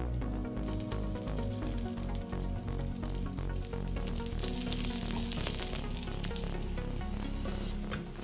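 Oil sizzling on a hot griddle as a layered chapati fries, the sizzle building about a second in and loudest around the middle. Background music runs underneath.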